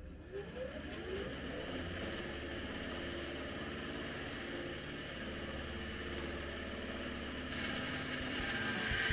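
Bandsaw switched on, its motor rising in pitch as it spins up over the first second, then running with a steady hum. Near the end a brighter hiss comes in and it grows louder as the blade starts into a polycarbonate sheet.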